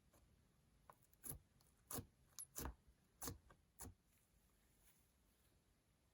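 Handling of slime and makeup: about six short, soft clicks and taps between one and four seconds in, otherwise near silence.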